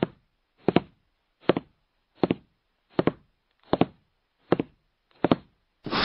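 Editing sound effect of short dull knocks repeating evenly, about one every three-quarters of a second, eight in all, with a longer, louder hit starting near the end.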